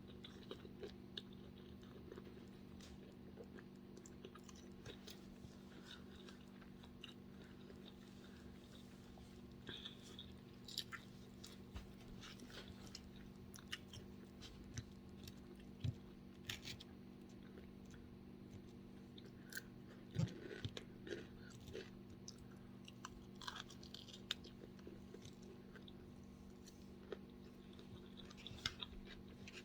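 A person quietly chewing and eating grilled shrimp and avocado salad, with scattered faint crunches and small mouth clicks over a steady low hum.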